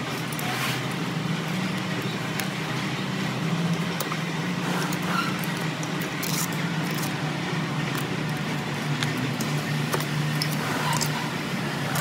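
Metal hand tool clicking and scraping against the old copper windings in an electric motor's stator as they are cut out for rewinding, with scattered sharp clicks over a steady low hum.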